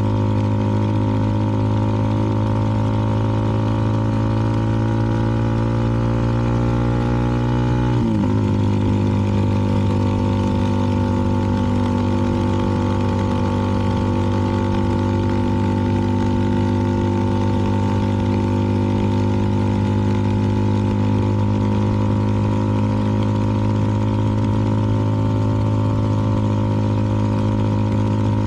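CFMoto 300NK single-cylinder engine through a KO aftermarket exhaust, under way: the revs climb slowly for about eight seconds, drop sharply at an upshift, then hold steady at cruising speed.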